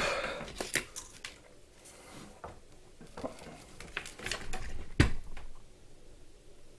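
A soldering iron tip being cleaned and small tools handled on a workbench: light clicks and scrapes, with one sharper knock about five seconds in.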